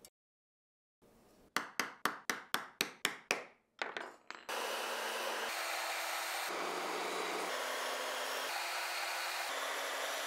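A quick run of about nine sharp knocks on wood. Then, from about halfway in, a steady rushing noise from the homemade drill press running with dust extraction pulling through its clear acrylic bit shroud.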